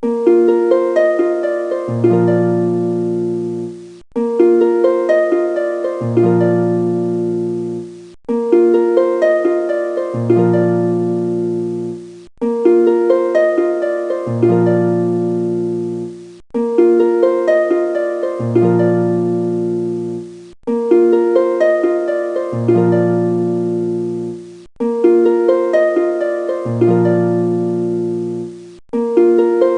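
Background music: a short plucked-string instrumental phrase looping about every four seconds, each loop starting abruptly.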